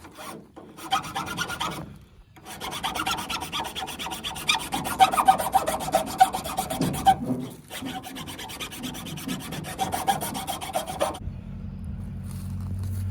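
A hand tool rasping at the wooden handle of an oar, cutting and smoothing a thumb notch, in fast back-and-forth scraping strokes with two brief pauses. Near the end the scraping stops and a steady low hum is left.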